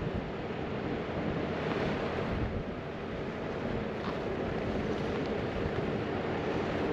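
Wind buffeting the microphone: a steady rushing noise with gusty low rumble.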